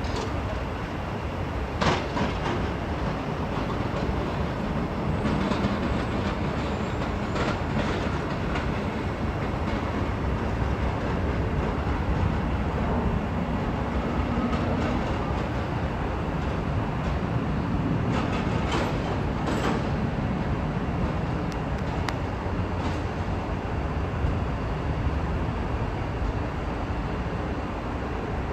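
Caltrain passenger train standing at the station platform, running with a steady low rumble, with a few sharp metallic clanks about two seconds in, around seven seconds in, and twice near the middle.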